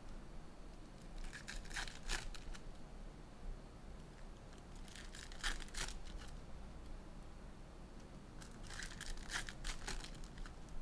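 Trading card pack wrappers being torn open and crinkled, in three short bouts of crackly tearing and rustling.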